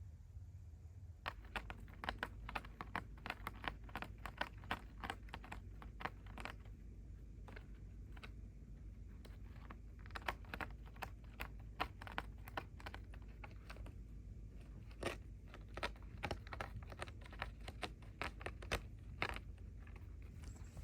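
Kitten purring close to the microphone, a steady low rumble, with quick irregular clicks over it in runs.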